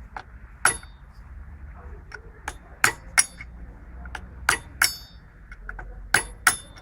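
Hammer striking a chisel or screwdriver against a metal CV boot clamp to knock it off the driveshaft: several sharp metallic clangs at irregular intervals, some in quick pairs.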